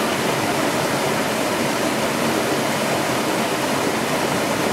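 Whitewater river rapids rushing steadily.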